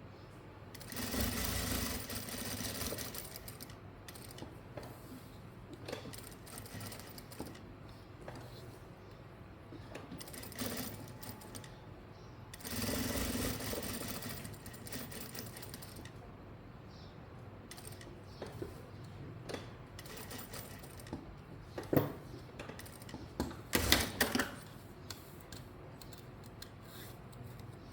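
Sewing machine stitching in two short runs of two or three seconds each, one near the start and one about halfway through, with quiet fabric handling between them. A few sharp clicks near the end.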